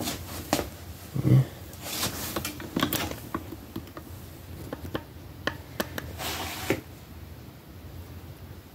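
Handling noise: a string of sharp plastic clicks and knocks, one with a dull thud, then a brief rustle about two-thirds of the way in, as a large plastic action figure is turned and the camera moved around it. Low room tone follows for the last couple of seconds.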